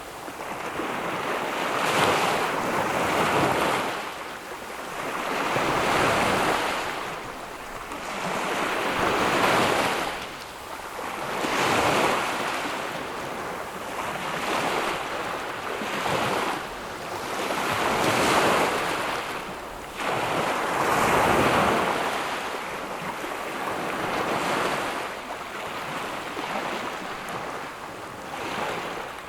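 Ocean waves breaking on a tropical beach, the surf swelling and washing back about every three to four seconds.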